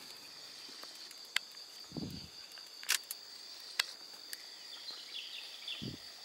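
Steady high-pitched drone of insects such as crickets in the forest at dusk. A few sharp clicks and two short low thumps stand out over it.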